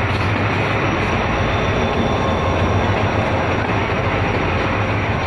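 Freight train wagons rolling past at close range: a loud, steady rumble of steel wheels running on the rails.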